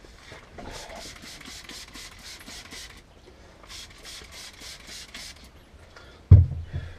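Trigger spray bottle spritzed rapidly, two runs of short hissing sprays, then a single loud thump near the end.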